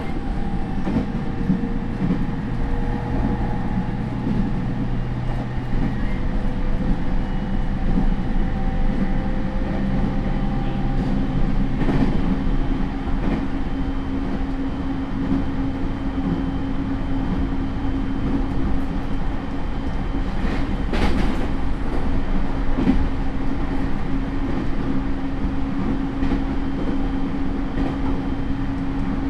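Onboard running sound of a JR E231 series motor car with its original Hitachi IGBT VVVF inverter: steady traction motor and inverter tones over wheel and rail rumble. A low steady tone gives way about twelve seconds in to a higher steady one, with a couple of brief knocks from the track.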